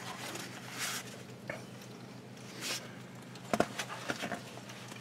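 Someone moving about in a shop, with soft shuffles, then a sharp knock about three and a half seconds in followed by a few lighter clicks, over a steady low hum.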